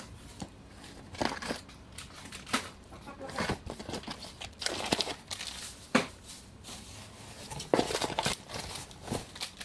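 Plastic packaging crinkling and rustling in irregular bursts, with sharp handling clicks, as wrapped food packages are opened and handled.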